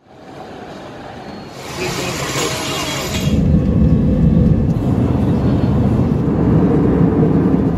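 Airbus A320 jet engines heard from inside the cabin: a steady low rumble that swells and grows louder about three seconds in, after a brief hiss.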